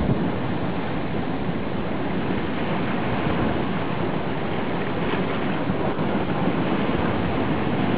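Steady rushing and rumbling of moving water and surf, heard underwater in a tidal rock pool.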